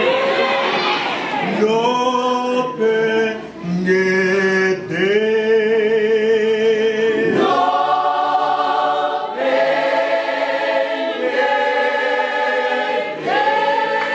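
Church choir singing a cappella in parts, men's and women's voices together. The sound fills out into full, sustained chords about halfway through.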